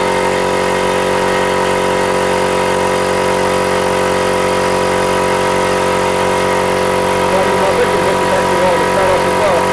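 Small direct-drive electric air compressor running steadily as it charges its tank. It makes a loud, even, quite noisy hum that holds the same pitch throughout.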